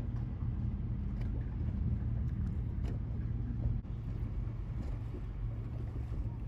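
Steady low drone of a boat's engines running at low speed, an even hum with a little wind on the microphone.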